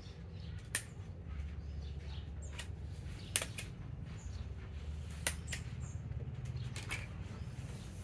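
Soft rustling of a hand stroking and scratching a baby monkey's fur on a cloth pillow, with a few sharp clicks, over a steady low hum.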